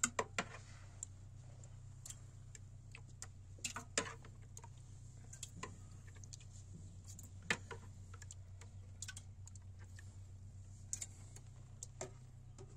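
Scattered light clicks and taps at irregular intervals over a steady low hum, the loudest just after the start, about four seconds in and about seven and a half seconds in.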